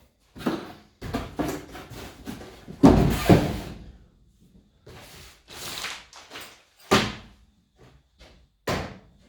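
Unpacking noise: cardboard and foam packaging handled and scraped, with a few short thumps as things are knocked or set down, the sharpest near the end.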